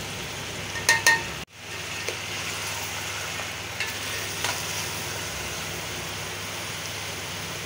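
Chicken pieces frying in ghee in a large metal pot: a steady sizzle, with a spatula stirring and clicking against the pot as dry spices are mixed in. About a second in come two sharp metallic clinks, followed by a brief break in the sound.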